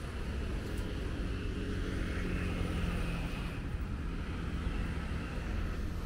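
Road traffic in the background: a steady low rumble, with a motor's hum swelling and fading a couple of seconds in.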